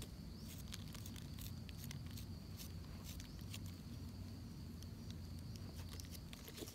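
Knife blade scraping and picking the soil off the stem base of a freshly picked wild Amanita mushroom held in the fingers: a run of faint, irregular small scrapes and ticks, over a steady thin high tone and a low rumble.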